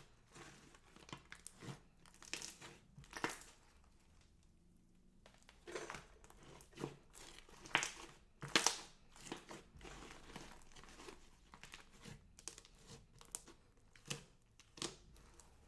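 Slime-making materials handled by hand: irregular crinkling and crackling, a string of short scratchy bursts with a brief lull about four seconds in.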